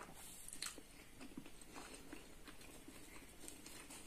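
Faint eating sounds: chewing, with a few soft scattered clicks as roti flatbread is torn and handled.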